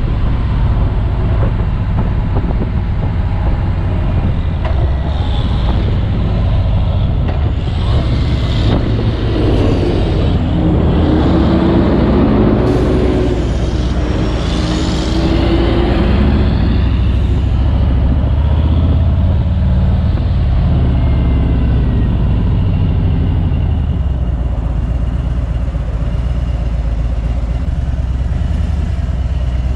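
Harley-Davidson V-twin touring motorcycle running under way, its low engine rumble mixed with wind and road noise, with a louder stretch in the middle; the wind noise drops near the end as the bike slows.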